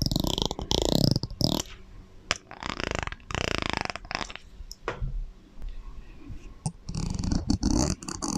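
A series of short, low, guttural sounds with bending pitch, each with an echo trailing after it.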